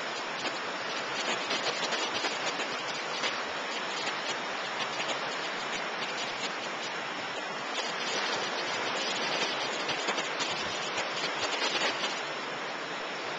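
Surf washing up a beach: a steady hiss full of small crackles, swelling a little in the second half.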